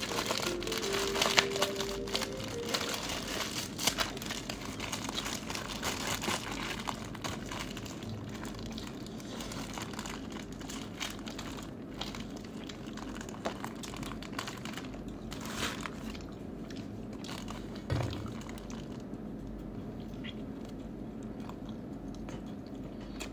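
Thin clear plastic food bag crinkling and crackling as it is untied and opened by hand, densely for the first half, then more sparsely.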